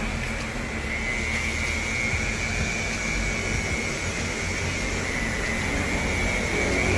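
Steady mechanical hum with a high whine that wavers slightly in pitch.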